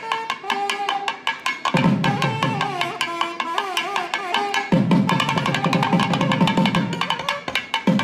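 Instrumental intro music: an ornamented, gliding melody line over a fast, dense drum and percussion rhythm, with a heavier low drum part coming in about two seconds in.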